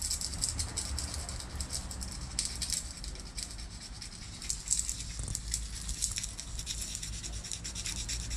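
Fine sandpaper rubbed by hand in quick short strokes over the painted cowling of an outboard motor, a dry scratching as it feathers the raised edges of chipped paint.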